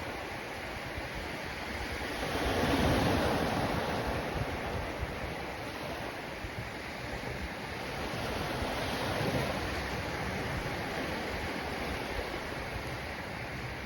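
Steady outdoor rushing noise of wind and surf, with no distinct events. It swells about three seconds in and again about nine seconds in.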